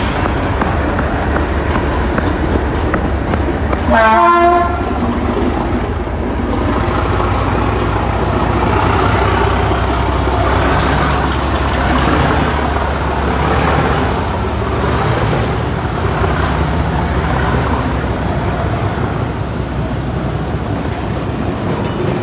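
Colas Rail Freight Class 37 diesel locomotives passing close by under power, their English Electric V12 engines running with a steady rumble. A short horn blast sounds about four seconds in, and a faint rising whine comes in later.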